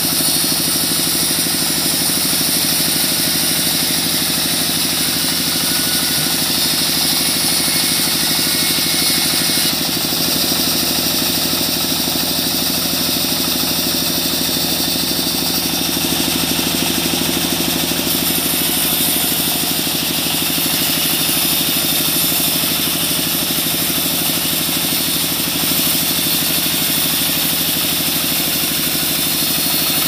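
Vertical band sawmill running steadily, its blade sawing lengthwise through a squared mahogany branch being fed past it, with a constant low hum under a high hiss.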